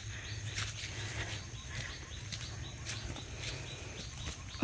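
Footsteps of hikers on a dirt jungle trail strewn with dry leaves, with irregular crunches and scuffs. Behind them are rapid high chirps from forest wildlife, repeating about three to four times a second.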